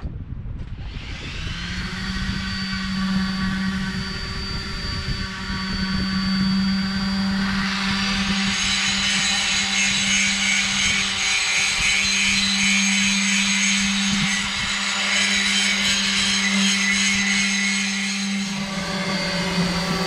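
Electric sanders running against a boat's underwater hull: one motor spins up with a rising whine about a second in and then holds a steady pitch. A second tool spins up about eight seconds in, adding a higher whine.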